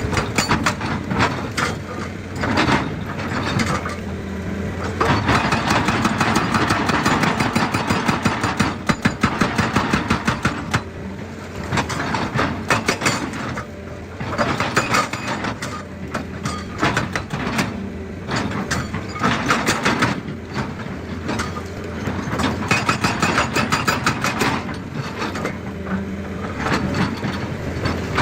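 Excavator's diesel engine running steadily under bursts of rapid knocking and crunching as rock is broken, the bursts coming and going every few seconds.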